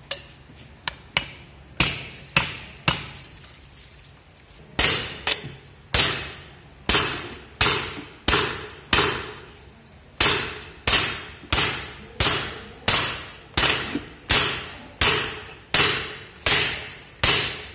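Small hammer striking a steel bearing cup to drive it into its seat in a feed pellet mill press roll: a few light taps, a short pause, then steady ringing metallic blows about twice a second.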